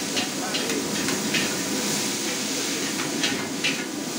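Wok hissing with steam as thin noodles are tossed in it, with several sharp clinks and scrapes of metal ladles against the wok.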